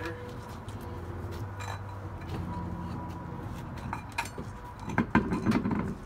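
Steel spare wheel being lifted and fitted onto a car's wheel hub studs: metallic clinks and scrapes, with a few louder clunks near the end as the rim goes onto the hub.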